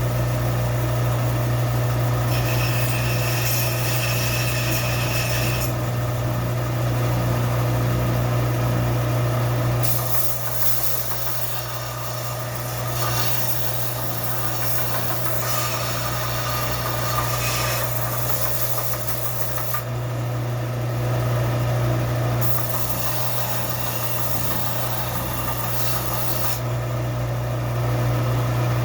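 Belt sander running with a steady motor hum, and a rasping grind each time a rusty steel adze blade is pressed against the belt, in three spells.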